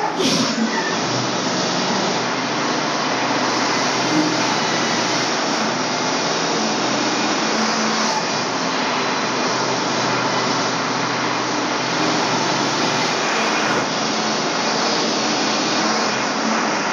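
Portable band sawmill running under load: its air-cooled engine runs at speed while the band blade saws lengthwise through a pine log, making a loud, steady mechanical noise.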